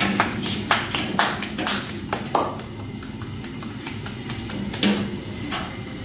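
Puri dough being slapped and patted flat between bare palms: quick claps, about five a second for the first two and a half seconds, then one more near the end.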